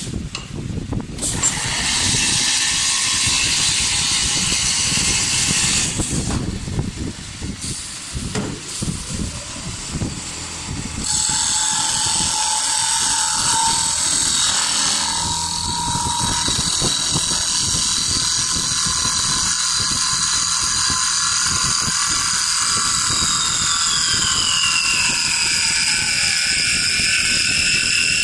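Automatic wood-turning lathe cutting a spinning wooden blank into a pestle, with a rough cutting noise. About a third of the way in a steady high whine joins it, and near the end the whine drops in pitch.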